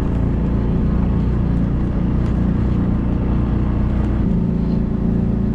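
Vehicle engine running steadily with a low hum as it pulls away through deep snow.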